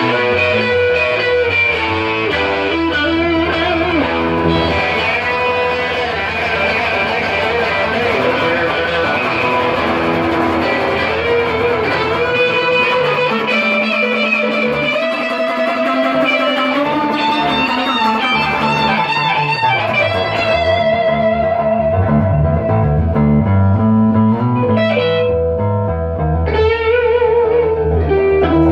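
Electric guitar music with effects, notes moving melodically over a bass line.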